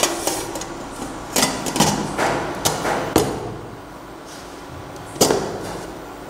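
Stainless-steel pressure cooker lid being closed and locked: a series of about six sharp metallic clanks and clicks as the lid seats and the handles are pushed together, the loudest a little after five seconds in.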